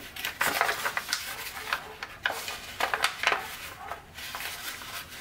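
Tant origami paper crinkling and rustling in short, irregular crackles as pleats of a tessellation are pressed and twisted into place by hand.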